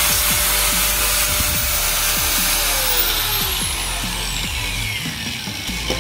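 Handheld angle grinder with a cutting disc running free, then switched off: from about three seconds in its whine falls steadily in pitch and fades as the disc spins down.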